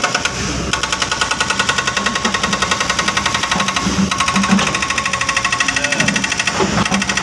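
Diesel heavy machinery running close by with a rapid, even clatter.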